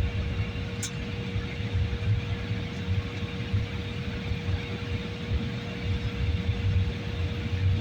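Airliner cabin noise in flight: a steady low rumble from the jet engines and airflow, with a constant hum.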